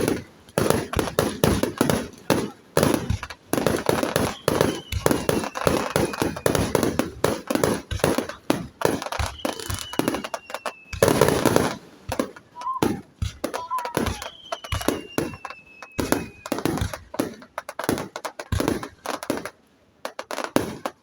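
Fireworks display: dense bangs and crackling bursts in quick succession, with three thin whistles sliding down in pitch, one each at about four and a half, nine and a half and fourteen and a half seconds in. The bursts thin out near the end.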